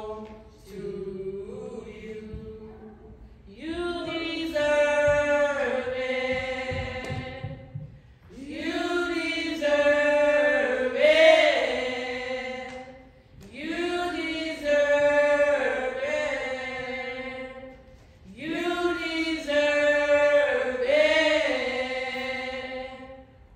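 Slow church singing in long, drawn-out phrases with each note held. After a quieter opening, four loud phrases of four to five seconds each follow one another, with short breaks between.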